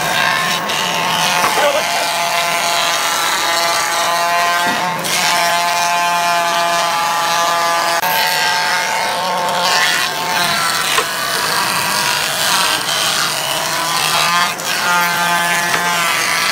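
Industrial thickness planer running and planing a board: a loud, steady whine over the rush of the cutterhead chipping wood. The whine breaks off briefly a few times.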